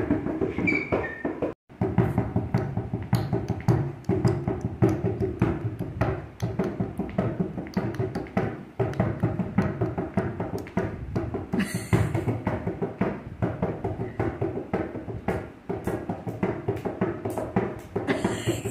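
Hand drumming on a plastic bucket lid in a fast, steady melam-style rhythm, with dense repeated strikes. It cuts out briefly about a second and a half in.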